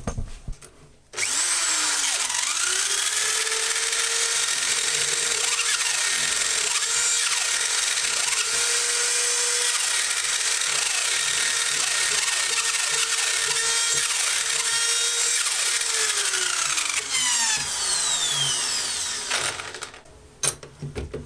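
Handheld electric drill, mounted in a homemade drill press, switched on: it spins up about a second in, runs at a steady speed for roughly fifteen seconds, then winds down to a stop. The owner describes the drill as barely in working order.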